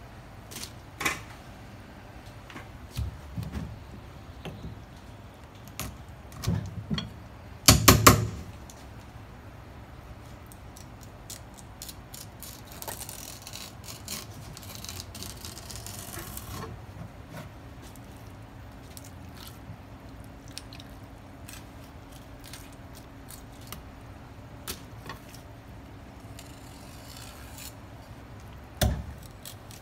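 Knife work on a conger eel on a wooden board: scattered taps and knocks, a loud cluster of knocks about eight seconds in, and a few seconds of the blade scraping along the fish near the middle.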